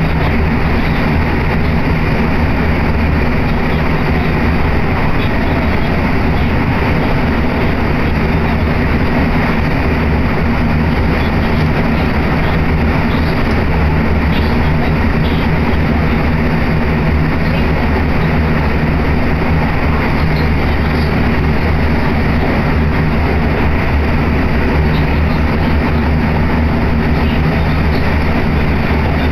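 Commuter electric train running, heard from inside the passenger car: a steady rumble of wheels and running gear with a low, constant hum.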